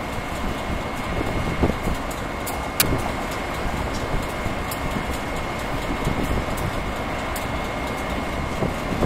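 Steady rumble of distant vehicles, an Acela train moving through the rail yard and road traffic beyond, with wind buffeting the microphone and a thin steady high tone; a sharp click about three seconds in.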